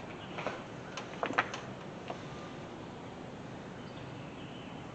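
A few light clicks and scrapes of hand work in the first two seconds, the loudest about one and a half seconds in, as silicone sealant is laid around the water jackets of the cylinder head; then only a steady background hiss.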